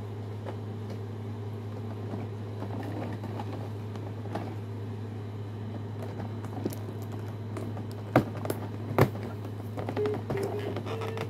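Steady low hum with a few sharp clicks and taps of plastic packaging being handled, about eight and nine seconds in, then a few short steady pitched tones near the end.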